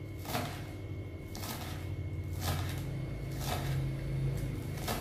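Kitchen knife slicing spring onions on a wooden cutting board, one crisp cut about once a second, over a low steady hum.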